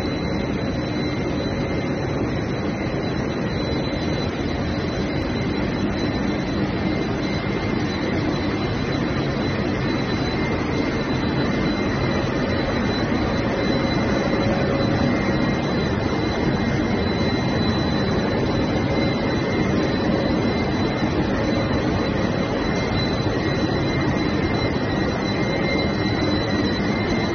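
A 1000 mm double-wall corrugated pipe extrusion line running: a steady, fairly loud industrial drone and hiss from its extruder, corrugator and blowers, with a thin high whine over it.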